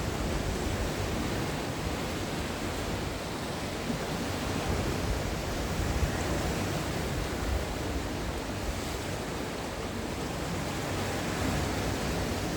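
Sea waves washing onto the shore, a steady rushing surf with gentle swells in loudness and no distinct crashes.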